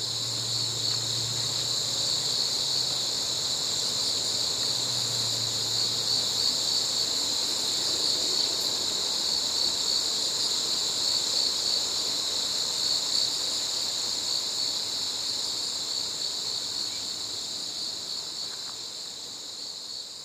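Steady, high-pitched chorus of chirring insects, an unbroken shrill drone.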